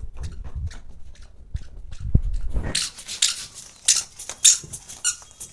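Quick scuffs and slaps of children's feet running on a concrete floor, thickest in the second half, over a low rumble in the first half.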